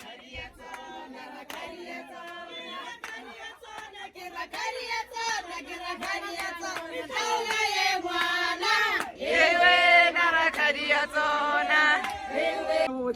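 A group of people singing a song together, with hands clapping along; the singing grows louder in the second half.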